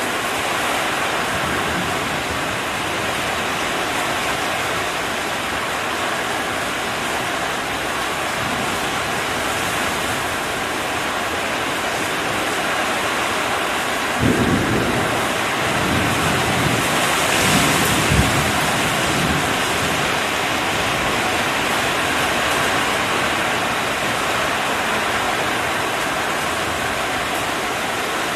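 Torrential rain pouring down steadily. About halfway through, thunder rumbles deeply for several seconds, with a sharper crack near the end of the rumble.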